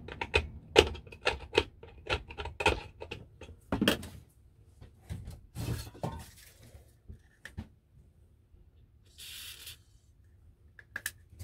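A screwdriver clicking, knocking and scraping against the rusted metal pointer hub of an old dial scale, prying at a seized pointer nut. About nine seconds in comes a short aerosol spray hiss as penetrating oil goes onto the stuck hub.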